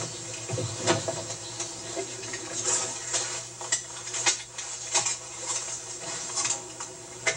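Light clicks and knocks of someone climbing the metal steps into a tractor cab and settling into the seat, over a low steady hum.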